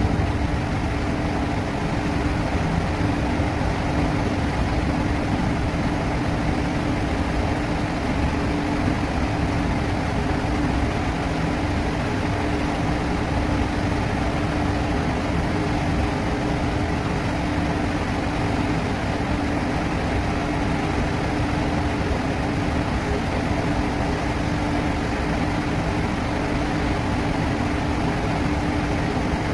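An oil tanker's machinery droning steadily as the ship gets under way: a constant hum over a low rumble, with no change in level.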